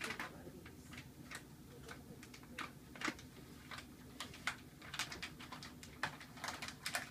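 A cat pawing and biting at a plastic bag on a tile floor: irregular crinkles and clicks of the plastic, several a second at times.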